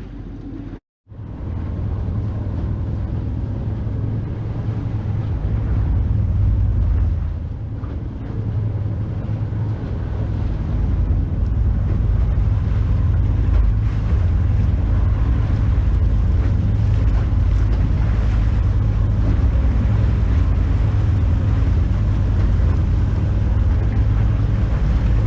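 Small boat under way on the sea: a steady low rumble with wind on the microphone and water noise.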